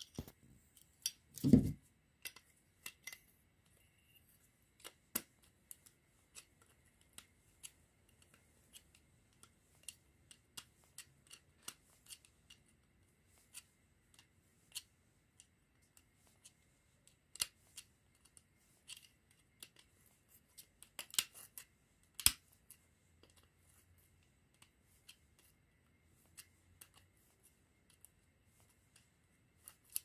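Scattered light clicks and taps of small hand tools on the metal parts of a refrigerator fan motor being taken apart, irregular and spaced out, with a duller knock about a second and a half in and a quick run of sharper clicks about two-thirds of the way through.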